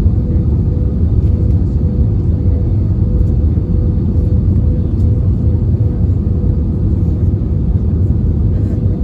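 Airliner cabin noise during the landing approach: a steady, loud low rumble from the engines and airflow, with a steady hum running through it.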